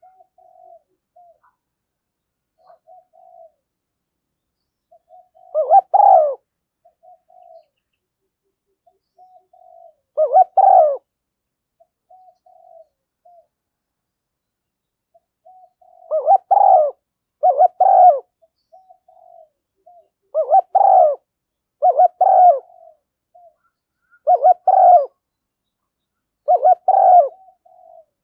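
Spotted dove cooing: eight loud, low coo phrases, some coming in quick pairs and others a few seconds apart, with short soft notes between them.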